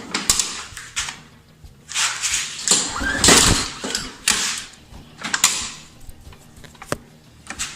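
Short irregular clattering and scraping bursts as the lawn mower is worked on just before it is started, with no engine running yet.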